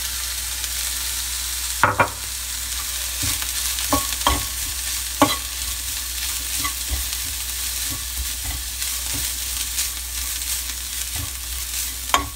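Grated coconut sautéing with a steady light sizzle in a nonstick frying pan, stirred with a steel spoon. The spoon scrapes the pan and gives a few sharp clinks against it, the loudest about two seconds in and near the end.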